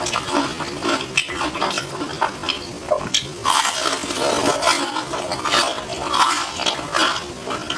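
Close-up chewing and crunching of crispy deep-fried glutinous-rice banana: a dense run of irregular crackles and clicks.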